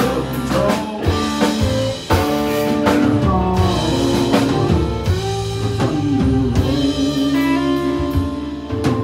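Live country band playing an instrumental passage: electric guitar and acoustic guitar over a drum kit with regular cymbal and drum hits.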